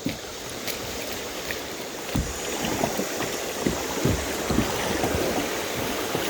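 Swift creek water rushing and splashing around a kayak, growing louder about two seconds in, with occasional low thumps.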